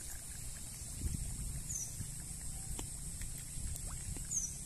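Low rumble with soft sloshes of water as hands work a cast net in the shallows, under a steady high hiss; a short high falling chirp sounds twice.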